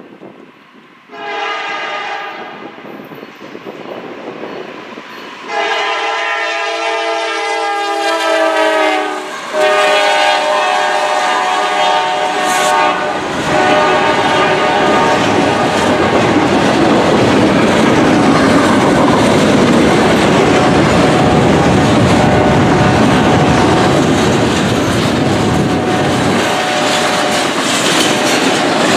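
Freight locomotive horn sounding three blasts for the grade crossing, a short one followed by two long ones, as a double-stack intermodal train approaches. From about halfway through, the train rolls through the crossing close by with a loud, steady rumble.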